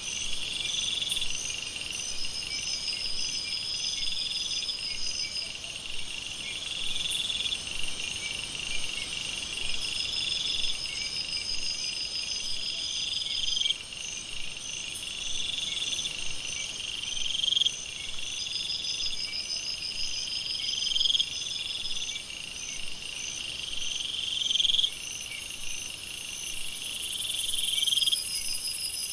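Night-time jungle chorus of insects and frogs: layered high chirping and pulsing trills, with a rising buzzy call repeating every few seconds. A high, hissing insect drone swells up near the end.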